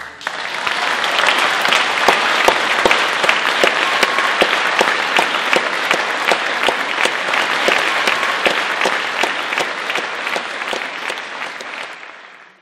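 Audience applauding: dense, steady clapping that swells up as the song ends and fades out near the end.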